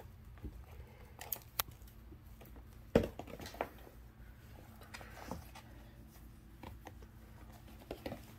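A few scattered light knocks and clicks over low room hum, the sharpest a single thump about three seconds in.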